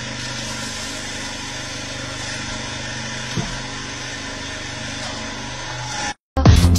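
Electric hydraulic press running with a steady motor hum as its ram crushes a stack of puffed rice cakes, with one short crack about three and a half seconds in. The hum cuts off near the end and loud music starts.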